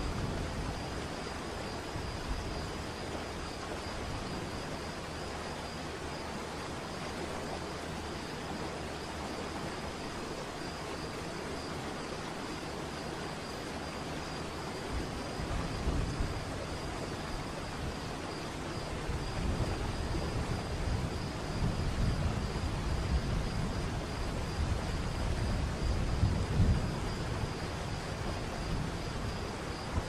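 Waterfall: a steady rush of falling water, with a deep rumble swelling up in the low end from about halfway through.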